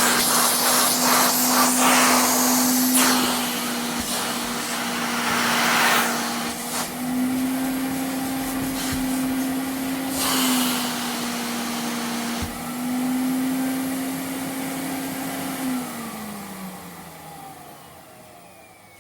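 Vacuum cleaner running: a steady motor hum with a rushing suction hiss that swells and drops as it works. About three-quarters of the way through it is switched off and the motor winds down, falling in pitch and fading out.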